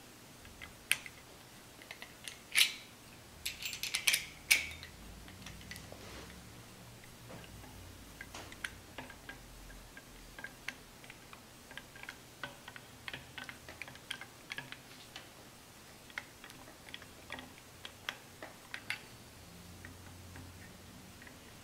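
Scattered small metallic clicks and ticks of a screwdriver and small rifle parts being handled while the trigger guard screws are fitted. A few sharper clicks come about two and a half and four seconds in.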